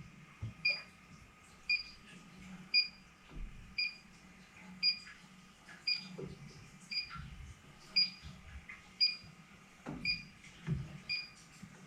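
Electronic refrigerant leak detector beeping steadily, about once a second, as it is used to search an aluminum evaporator coil for a leak. Some low handling knocks are heard alongside.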